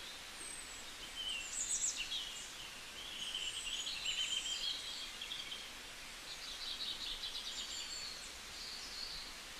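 Several songbirds singing and chirping over a steady outdoor noise, with overlapping short chirps, whistles and rapid trills. The sound cuts off suddenly at the end.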